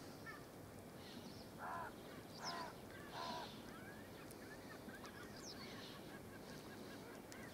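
Geese honking in the distance, three short honks about a second apart, over a faint open-air background.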